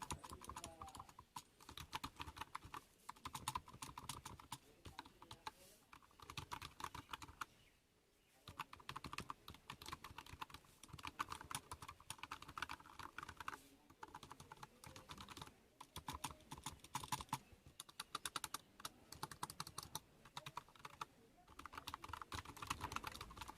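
Typing on a small wireless chiclet keyboard (Matlek 2.4G): quick runs of soft key clicks with short pauses between them. The clicks are not very loud.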